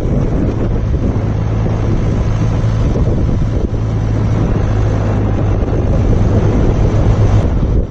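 John Deere 6400 tractor's four-cylinder diesel engine running steadily, with heavy wind buffeting the microphone.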